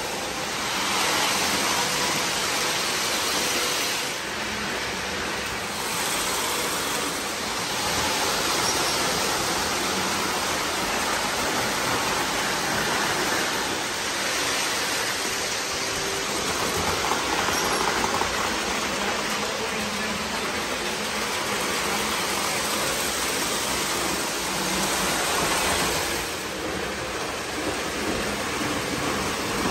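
O gauge model trains running around the layout: a steady rolling rumble of wheels on the track, with small swells.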